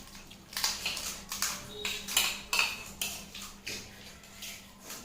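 Crisp puri shells of fuchka (pani puri) crunching while being chewed: an irregular run of about ten sharp crunches.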